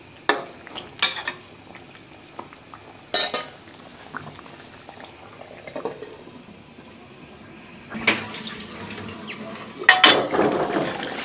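A metal spoon knocks and scrapes against a metal cooking pan a few times in the first few seconds. From about eight seconds in, a fish curry is heard bubbling and sizzling in the pan, louder near the end with some clatter.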